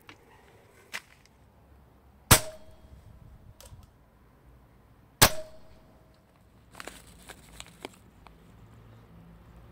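Two shots from a Snow Wolf M24 spring-powered bolt-action airsoft sniper rifle into raw pork leg, about three seconds apart. Each is a sharp crack followed by a short ringing tone. Near the end comes a quick run of lighter clicks.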